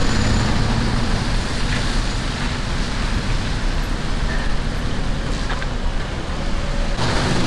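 Street traffic on a rain-wet road: a steady noise of cars running and passing.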